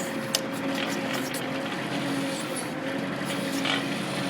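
Kubota L4400 tractor's diesel engine running steadily while it drives the backhoe, with one sharp click about a third of a second in.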